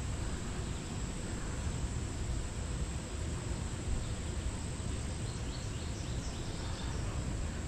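Steady outdoor background noise with a low rumble, and faint insect calls.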